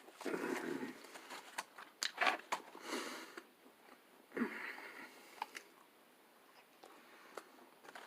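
A person biting into and chewing a chicken sandwich, with wet mouth sounds in several spells over the first five seconds or so, then only faint chewing.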